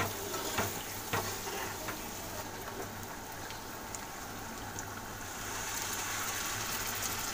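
Onion-tomato masala sizzling in a kadhai, with a steel ladle knocking against the pan a few times as it is stirred in the first second or so. About five seconds in, water is poured into the hot masala and the sizzle grows a little louder.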